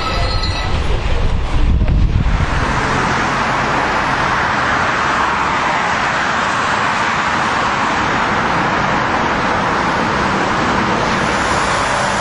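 Storm wind buffeting the microphone in uneven gusts for the first two seconds or so, then an even, steady rushing noise.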